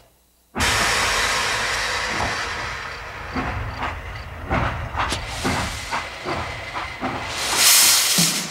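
Steam locomotive hissing steam, starting suddenly about half a second in, with irregular puffs and a louder burst of hiss near the end.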